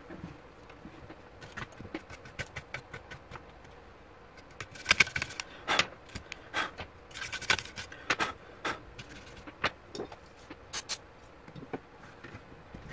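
Hands handling the plastic and metal base chassis of a disassembled Dell Inspiron N4030 laptop: a run of sharp clicks, taps and short scrapes, loudest in two clusters about five and seven and a half seconds in.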